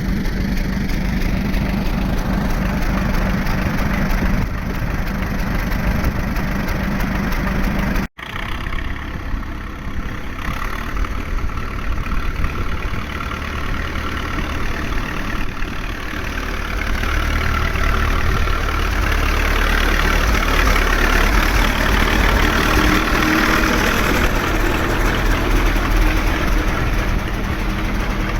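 Standard Fordson tractor's four-cylinder engine running steadily. The sound breaks off for an instant about eight seconds in and then carries on, somewhat louder toward the end.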